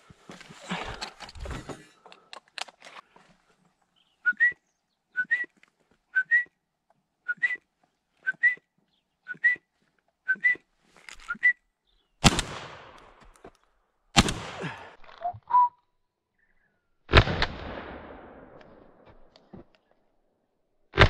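A short rising whistle repeated about once a second, eight times, then shotgun shots: two about two seconds apart, a third about three seconds later, and another right at the end.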